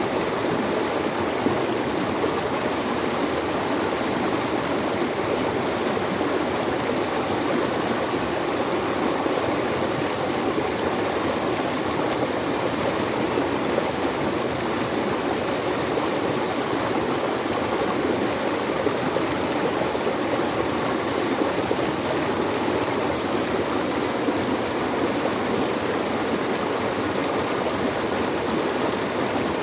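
Running water rushing steadily, like a stream flowing over rocks, with no change in level.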